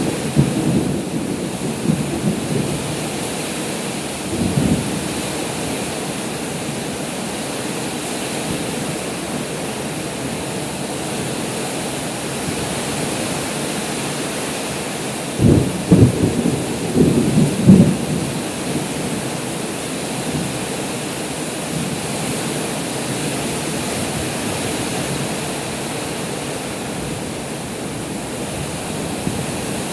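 Heavy rain pouring down steadily, with low rumbles of thunder at the start, again about four seconds in, and a louder run of rumbling around the middle.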